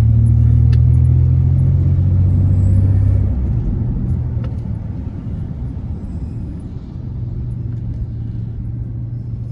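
A vehicle's engine running while driving, a loud low hum with road rumble. The hum is strongest for the first three seconds, then eases off and carries on more quietly.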